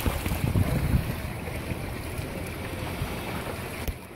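Wind buffeting the microphone in gusts, over a steady rush of wind and sea; a click near the end, after which it is quieter.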